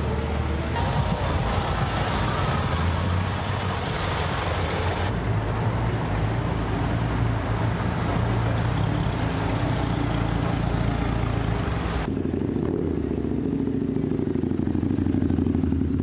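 Classic car engines running as cars cruise by, in several short clips that change abruptly, with a different-sounding car near the end.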